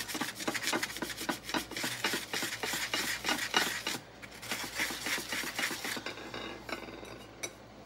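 Coarse sanding block scrubbed rapidly back and forth over the base of a glazed bowl, scuffing the glaze so glue will grip. The strokes weaken after about four seconds and die away, with a single small tap near the end.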